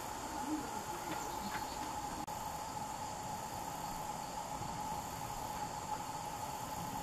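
Steady insect chorus trilling on without a break at two pitches, a middle one and a high one, over a light background hiss.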